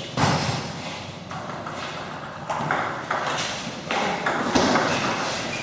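Table tennis ball striking rackets and bouncing on the table, a run of sharp irregular pocks about a second or less apart, as in a rally.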